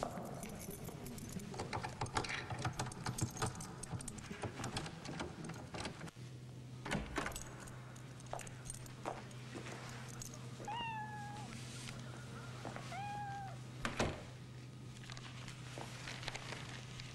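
Keys rattling and clicking at a door lock, then a steady low hum. Partway through, a domestic cat meows twice in short, falling calls, and a single thump follows.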